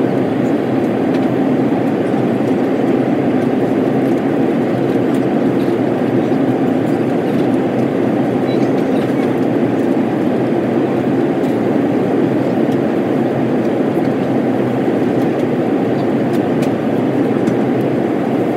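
Steady in-flight cabin rumble of an Airbus A330-300: engine and airflow noise heard from a seat inside the cabin, unchanging, with a faint steady hum under it.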